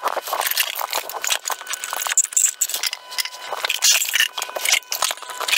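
Irregular clicking and rattling of small hard plastic parts: impellers being pulled from the pump heads of Aquael Ultramax canister filters, handled and set down on a table, in quick clicks throughout.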